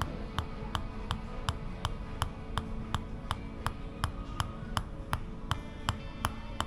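Tok sen treatment: a wooden mallet tapping a wooden wedge held against the body, sharp wooden clacks in an even rhythm of nearly three strikes a second.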